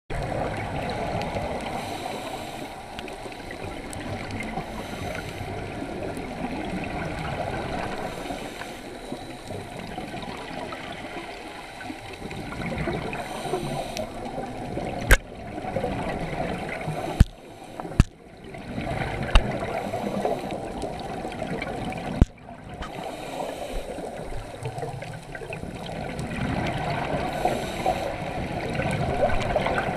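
Scuba diver breathing through a regulator, heard through an underwater camera housing: a muffled, gurgling rush of exhaled bubbles that swells and fades every few seconds. A few sharp clicks or knocks come in the middle.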